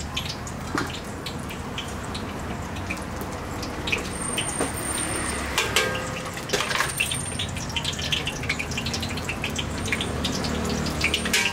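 Oil sizzling in a deep fryer, crackling with many small pops, with a few louder clicks of metal utensils about six and seven seconds in and near the end.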